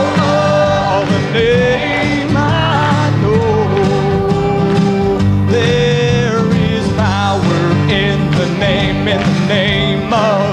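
Youth choir singing a gospel worship song, accompanied by acoustic guitar.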